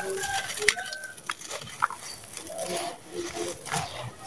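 Dry, dusty red sand-cement chunks crumbling in the hands: gritty crunching with sharp snaps and crackles, the loudest a little under a second in. A few short animal calls sound in the background.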